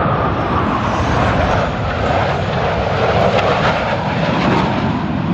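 A U.S. Navy Blue Angels F/A-18 Super Hornet jet flying past, its turbofan engines making a loud jet roar whose pitch falls over the first few seconds.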